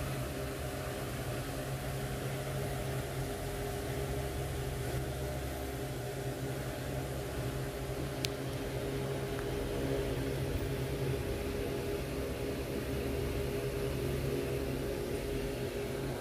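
Steady low mechanical hum, like a fan or appliance motor running, with a single sharp click about eight seconds in.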